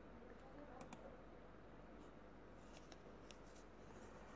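Near silence: room tone with a low hum and a few faint clicks.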